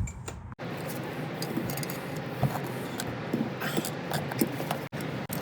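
Faint scattered clicks and light knocks of hand work on a stuck part of a vintage Yankee screwdriver, over a steady background hiss.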